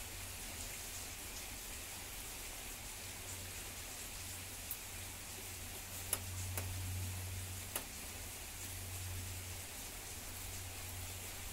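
Steady hiss of falling rain, with a few sharp ticks of drops striking close by, the loudest about six seconds in. A low rumble runs underneath and swells for a second or so near the middle.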